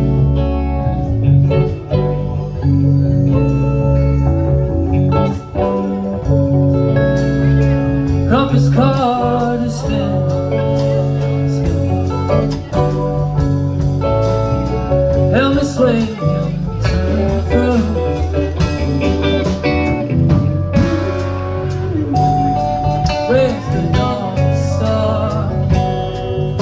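Live rock band playing: electric guitars over electric bass, drums and keyboard, with guitar notes bending in pitch.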